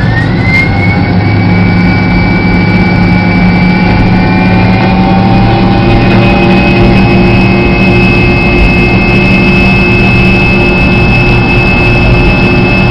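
Jet airliner engine spooling up: a whine climbs in pitch over about the first second, then holds steady and loud over a constant low rumble.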